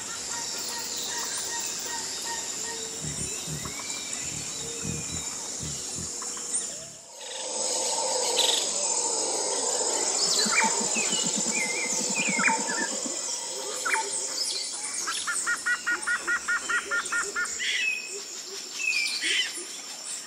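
Woodland ambience: assorted birds chirping and whistling over a steady high insect drone. The sound dips away and returns about a third of the way in, and near the end a bird gives a quick even run of about a dozen chirps.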